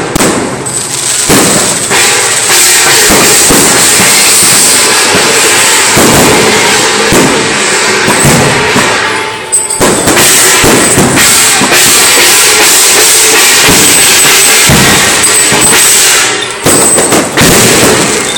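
Long strings of firecrackers going off in a loud, continuous crackle, with short lulls about nine seconds in and near the end.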